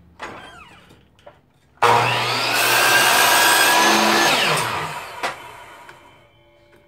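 DeWalt chop saw switched on about two seconds in, its freshly fitted blade spinning up and cutting through a wooden board, then the motor winding down after the trigger is released, with a short knock as it slows. The new blade cuts without forcing or burning the wood.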